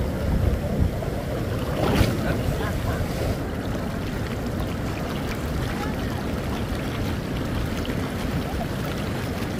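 Shallow ocean surf washing and swirling around wading legs, with wind on the microphone; a single sharp tap about two seconds in.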